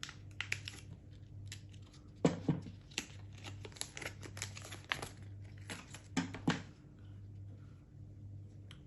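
Packaging for a small adapter cable being opened and handled by hand: a run of crinkles and small clicks, with a few heavier knocks around two seconds and six seconds in, then quieter handling for the last two seconds.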